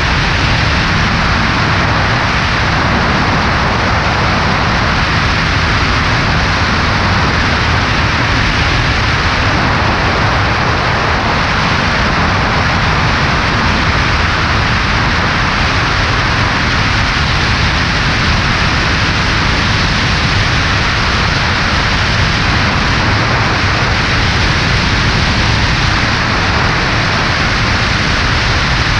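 Steady, loud rush of wind over a camera mounted on the left wing of a Cessna 140A in flight, with the plane's engine and propeller running beneath it as one unbroken noise.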